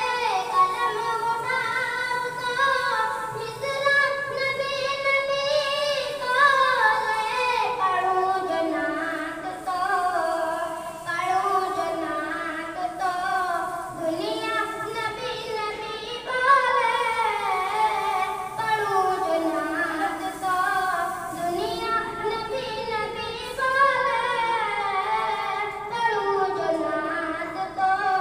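A solo voice sings a naat, an Urdu devotional poem, in a long melodic line with gliding, ornamented notes and no audible instrumental accompaniment.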